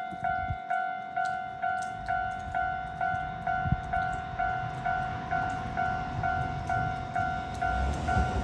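Japanese railway level-crossing warning bell ringing in a steady electronic clang, a little over two strikes a second. Near the end the low rumble of an approaching Keihan 2400 series train builds beneath it.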